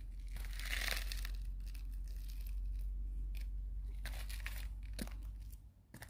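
Footsteps on stone paving over a steady low rumble of wind buffeting the microphone, with a few short knocks. The rumble drops out shortly before the end.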